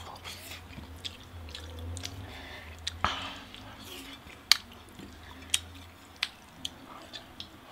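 A man licking sauce off a plate: soft, wet tongue and mouth sounds, with a few sharp smacking clicks spread through the second half.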